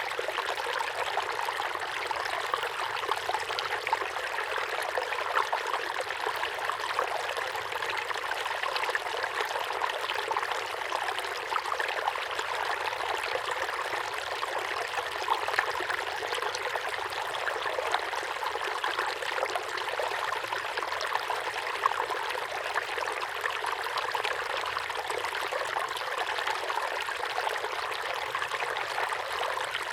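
Small waterfall pouring steadily into a pond: a continuous splashing rush of falling water with fine, quick splatters and no deep rumble.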